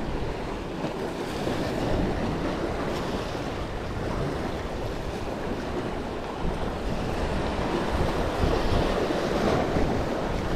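Sea waves washing and breaking against the rocks of a jetty, with wind buffeting the microphone. The surf swells louder about two seconds in and again near the end.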